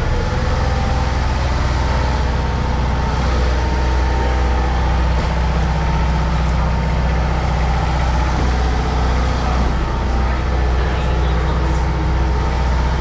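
Large charter fishing boat's engine running, a loud, steady low hum at an even pitch.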